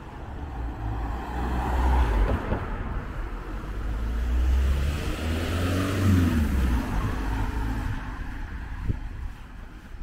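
Motor vehicles passing close by, the noise swelling and fading twice, with a falling engine note as the second one goes past.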